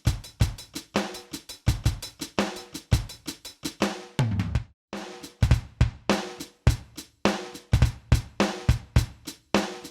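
Sampled drum-kit sounds from a Kurzweil PC4 workstation keyboard playing a steady groove of kick, snare, hi-hat and cymbal. A little before the middle the pattern breaks for a low fill and a brief gap, then the groove comes back in.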